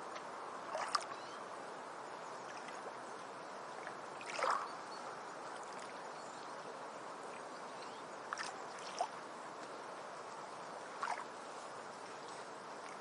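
A steady wash of moving water, broken about five times by short, sharp splash-like sounds, the loudest a little under halfway through.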